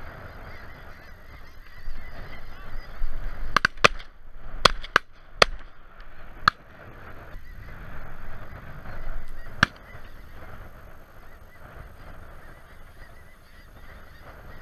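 A large flock of snow geese honking steadily overhead, with shotgun shots fired into the flock: a quick volley of about six shots from about three and a half to six and a half seconds in, then one more near ten seconds.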